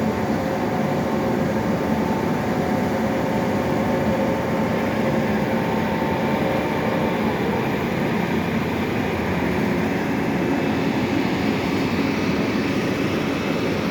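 Drilling rig's engine running steadily, with a faint whine that fades out about halfway through.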